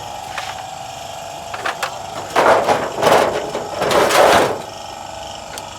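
Work on a car engine being overhauled: a few light metallic clicks, then three loud rasping bursts about a second apart, over a steady hum.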